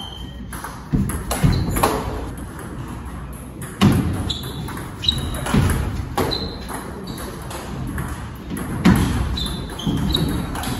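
Table tennis rally: the ball clicking off the bats and bouncing on the table, about one hit every half second to a second with a couple of short pauses, each bounce ringing with a short, high ping.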